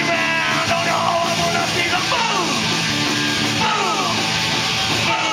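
Live punk rock band playing loud, with electric guitars, bass and drums at full volume and falling, sliding notes.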